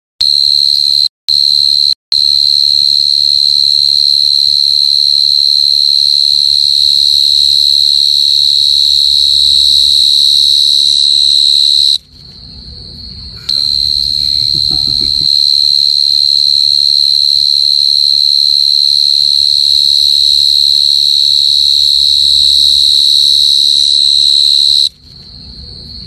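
Cricket chirping in one continuous, steady high-pitched trill. It cuts out for an instant twice near the start and drops to a fainter trill for a second or so midway and again near the end.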